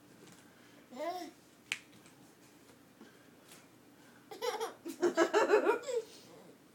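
Baby laughing: a short high vocal sound about a second in, then a loud run of quick high-pitched laughs lasting nearly two seconds near the end. A single sharp click comes just before two seconds.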